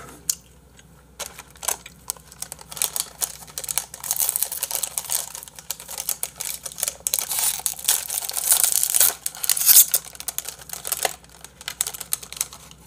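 Plastic packaging of a small pack of seasoned laver (gim) crinkling and crackling as it is torn open by hand and the tray pulled out, a dense run of small crackles and clicks.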